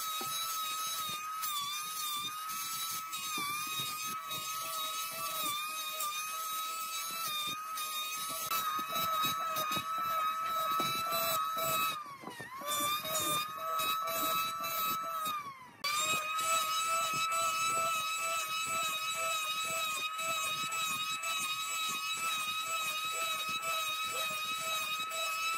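Handheld electric planer running at full speed with a high, steady whine as it shaves a wooden pole, with a scatter of clicks from the cutting. About twelve seconds in the whine falls in pitch and level, and near sixteen seconds it comes back up to full speed.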